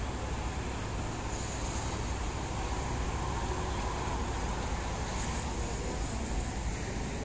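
Steady road traffic noise from a busy multi-lane expressway, with a passing vehicle swelling a little around the middle.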